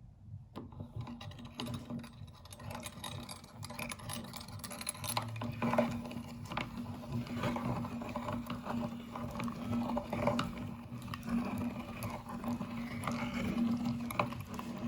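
Electric meat grinder switching on about half a second in and running with a steady hum, with irregular crackling and clicking as fruit jelly is forced through it.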